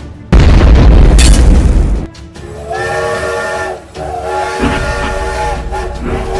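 A loud rushing burst lasting about a second and a half, then a multi-tone train whistle sounding in two long blasts.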